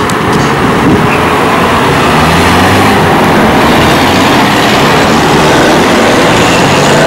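Steady, loud street traffic noise: road vehicles and trolleybuses running through a junction, with no single sharp event standing out.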